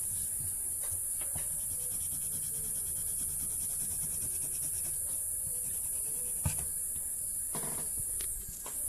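Steady high-pitched hiss with a low hum underneath, broken by a single sharp click about six and a half seconds in.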